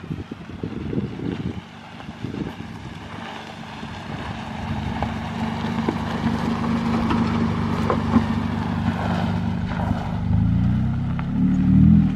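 2019 Toyota Highlander SUV driving past on a gravel dirt road: engine and tyre noise grow louder as it approaches, with wind on the microphone at first. Near the end the engine pitch rises as it accelerates away.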